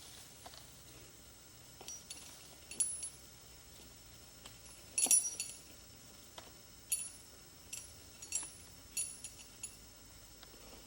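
Scattered light clinks and taps, irregular and a second or so apart, the loudest cluster about five seconds in, each with a short high ring.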